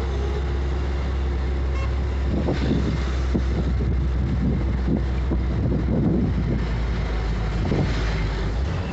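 Bus engine running with a steady low drone as the bus drives along, heard from inside the bus, mixed with irregular knocks and rattles. The drone dips briefly near the end.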